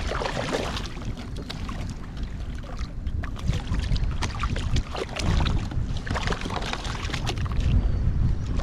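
Wind buffeting the microphone with a steady low rumble, with a short splash in the first second as a black sea bass is grabbed at the surface, then scattered light knocks and clicks from handling the fish and the rig against the kayak's plastic hull.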